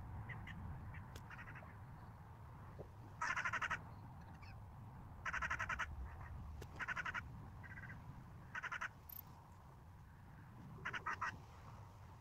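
A bird giving five harsh, rasping calls spaced one to two seconds apart, each lasting about half a second.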